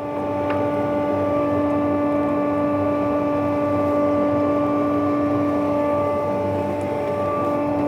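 Metabo BAS 261 band saw running with a steady hum of several held tones, growing louder just as it begins.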